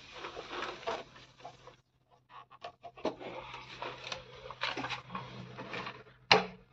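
Rustling and scraping of hands working white PVC pipe fittings, pushing and twisting them together, with small clicks and one sharp knock near the end over a faint low hum.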